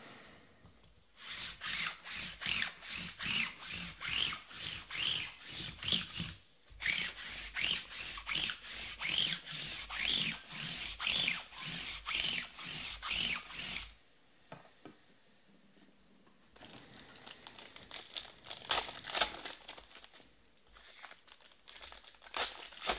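A regular run of rubbing strokes, about two a second, with one short break partway through. After a brief lull comes the crinkling and tearing of a foil trading-card pack wrapper being opened, and the cards being handled.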